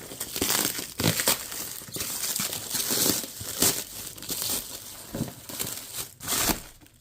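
Packing material crinkling and tearing in uneven rustles as it is pulled away by hand to free a boxed fire alarm speaker strobe.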